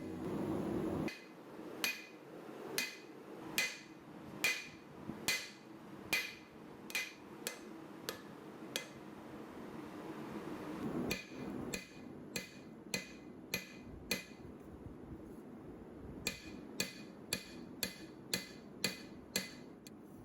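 Hammer forging high-carbon leaf-spring steel on an anvil: a series of ringing blows about one a second, a pause around nine seconds in, then more blows that come faster near the end.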